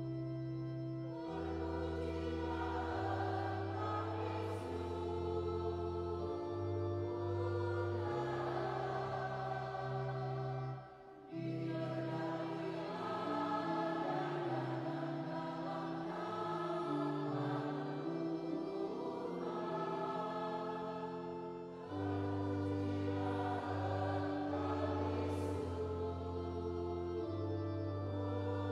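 Church choir singing a hymn, accompanied by a digital keyboard on an organ voice with long held chords and a moving bass line. The music breaks off briefly about a third of the way through and resumes.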